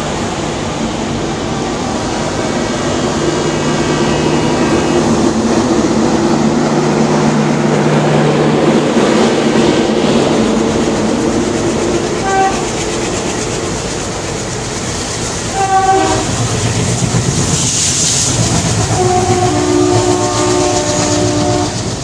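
Express train passing through a station at speed, its wheels clattering over the rail joints, while the locomotive horn sounds: two short blasts around the middle and a longer blast near the end.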